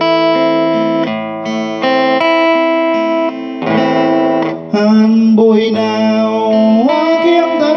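Martinez MS-206CE acoustic-electric guitar, with a solid spruce top and mahogany back and sides, played through its pickup and an amp. It plays a slow-rock accompaniment in A minor as a run of plucked notes and chords.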